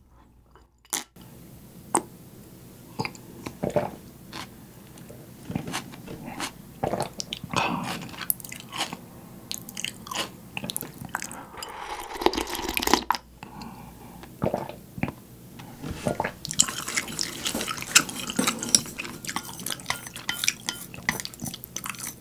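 Close-miked gulping and slurping of milky beef-bone noodle broth drunk straight from a ceramic bowl, taken in a few separate draughts. The last few seconds carry a dense patter of small clicks and taps.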